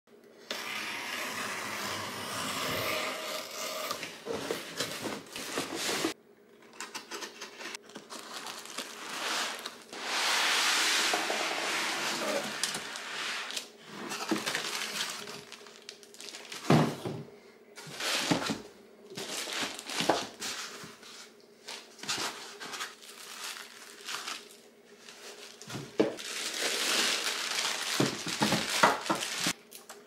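Unboxing handling sounds: packing tape peeled and torn off a cardboard box, then plastic wrap and bags crinkling and cardboard and foam packing pieces rustling, with scattered knocks as parts are set down on a wooden table.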